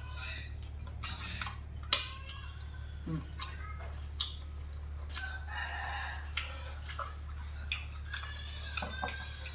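Spoon and chopsticks clinking against a stainless steel food tray and bowls while eating; a sharp clink about two seconds in is the loudest. Two drawn-out animal calls sound in the background, around five and eight seconds in.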